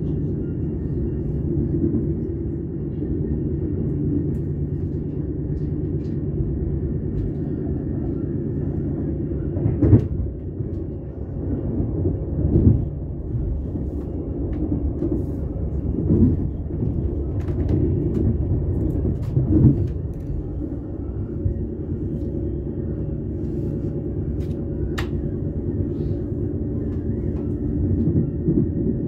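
Passenger train rolling along the track, heard from on board: a steady low rumble with a few heavier knocks from the wheels and running gear near the middle.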